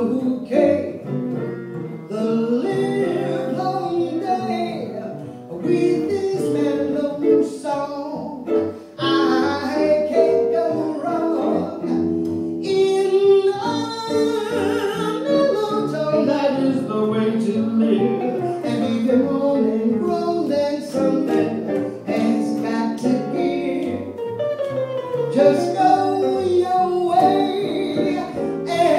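Live jazz: a woman singing into a microphone, backed by archtop guitar and plucked upright bass.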